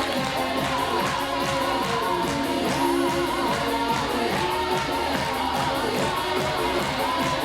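Folk dance music with singing over a steady beat. The voice wavers in pitch as it holds its notes.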